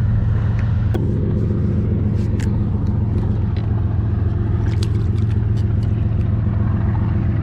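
Steady low mechanical hum, like a small motor running, with a few light clicks over it.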